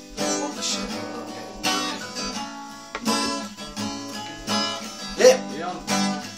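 Acoustic guitar strummed, chord after chord, each left to ring out.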